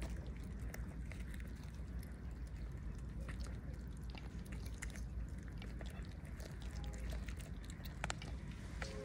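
Cats chewing and biting at a cooked chicken carcass: irregular wet clicks and crunches of teeth on meat and bone, over a steady low background rumble.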